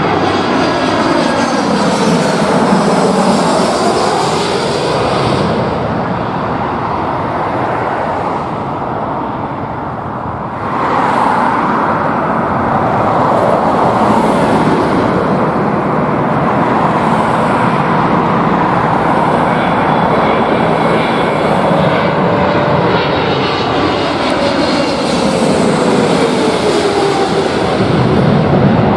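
Jet airliners on final approach passing low overhead: an Airbus A318's engines with a whine falling in pitch as it passes, then, after an abrupt change about a third of the way in, a Boeing 777-300ER's GE90 engines building up and passing with a slowly falling tone near the end.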